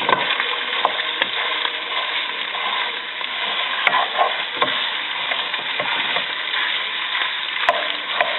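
Ground pork frying in hot oil with garlic in a pan, a steady sizzle, while a utensil stirs and breaks up the meat, scraping and knocking against the pan every second or so.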